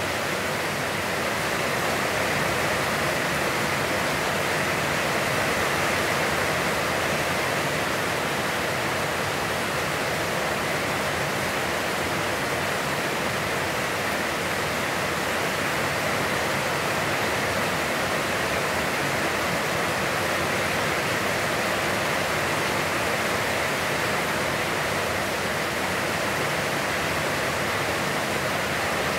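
Heavy, constant rain falling with an even, unbroken hiss.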